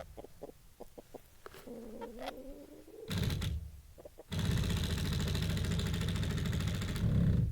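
A few light clicks, then a chicken's short wavering cluck about two seconds in. From a little past the middle to the end there is a steady rushing noise, louder than the call.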